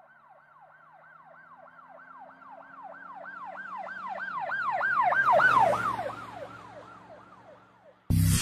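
Emergency vehicle siren in a fast yelp, each sweep falling in pitch and repeating about three or four times a second. It grows louder as the vehicle approaches, is loudest about five and a half seconds in, then fades as it passes, with engine and road noise under it at the peak.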